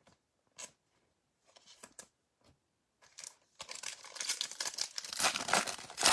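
Foil trading-card pack being torn open and crinkled by hand: a few faint ticks, then from about three and a half seconds in a dense, growing crackle of foil wrapper, loudest near the end.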